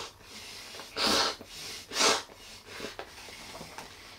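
A person slurping instant yakisoba noodles: two loud slurps about a second apart, with fainter ones around them.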